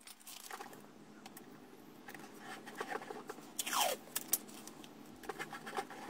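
Masking tape being pulled off the roll in crackling rips, torn off and pressed onto the back of a car centre console, with one longer rip that falls in pitch nearly four seconds in.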